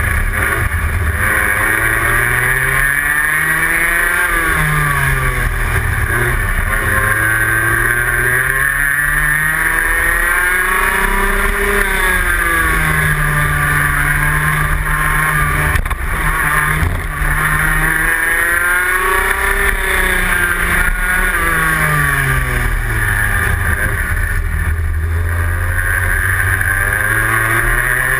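Rotax Max 125cc single-cylinder two-stroke kart engine heard from on board at racing speed, its pitch climbing repeatedly under throttle and dropping off when lifting for corners, with steady wind rush.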